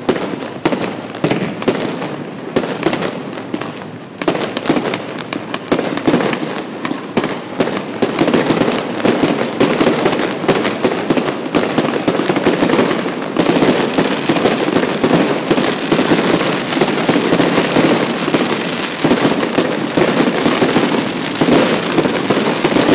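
Aerial fireworks bursting in rapid volleys of bangs and crackles, which become denser and almost continuous from about halfway through.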